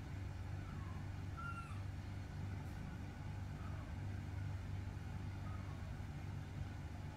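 Steady low background hum, with a few faint, short high chirps scattered through it.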